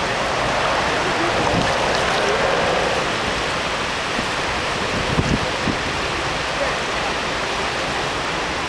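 Shallow stream water flowing steadily over a gravel bed, with a couple of brief low thumps near the middle.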